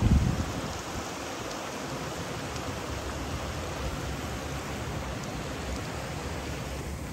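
Steady rushing water noise, with a brief low thump right at the start.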